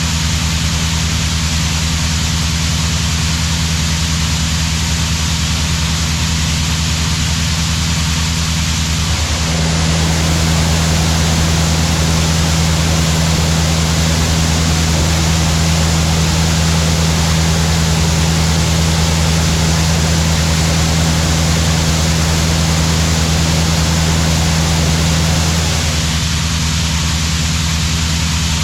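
A large farm machine's engine running steadily with a low hum and a broad rushing noise. The rushing gets louder about a third of the way in and eases off again near the end.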